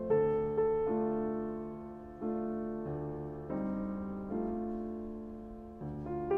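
Slow, soft piano music: notes and chords struck about once a second, each left to ring and fade before the next.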